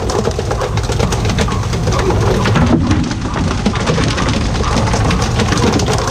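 Continuous heavy splashing of sea water alongside a tuna pole-fishing boat, where hooked tuna thrash at the surface, with a steady low rumble underneath.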